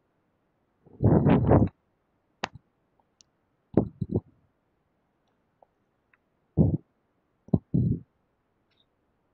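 Handling noise on a close microphone: about five short, irregular groups of low thumps and clicks. The first and loudest comes about a second in.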